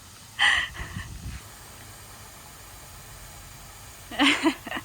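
Water spraying from a garden hose, a steady hiss, with two brief voice sounds about half a second in and near the end.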